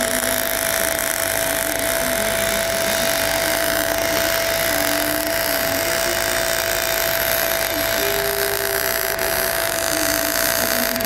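MIG/MAG welding arc from a Fronius welder burning continuously on a steel pipe root run, a steady crackling hiss with a thin steady whine running through it. The welder is weaving the wire across a wide root gap of about 3 mm so that it fills without blowing through.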